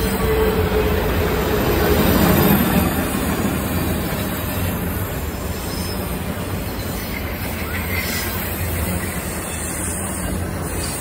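Loaded CSX autorack cars rolling past on curved track: a steady rumble and rush of steel wheels on rail, with a thin wheel squeal in the first few seconds.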